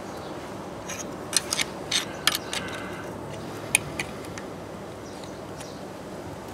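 Light metallic clicks and scrapes from a thin steel hand tool being worked between the camshaft lobes and valve buckets of a BMW K75 cylinder head during valve clearance adjustment. There is a cluster of sharp ticks in the first half and a couple more a little later, over steady background noise.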